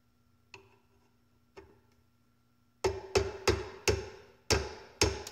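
Small hammer tapping a steel roll pin, held in pliers, into an AR-15 adjustable gas block: two light taps to start the pin, then six sharp metallic strikes at about three a second, each ringing briefly.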